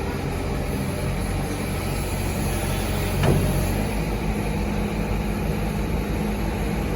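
Heavy diesel engine running steadily at a low, even pitch, with one short sharp sound about three seconds in standing out above it.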